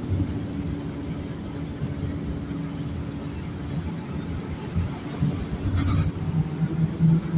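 Inside a ZiU-682G trolleybus under way: a steady rumble of running and road noise, with a faint steady hum in the first couple of seconds. A brief rattle-like noise comes about six seconds in.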